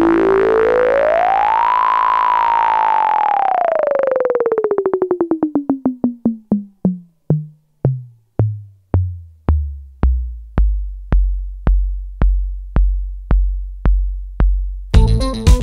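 Electronic synthesizer music. A held synth tone glides up in pitch and then slowly down, breaking into repeated pulses that slow to about two a second and sink to a deep bass throb. Near the end a full drum-machine beat comes in.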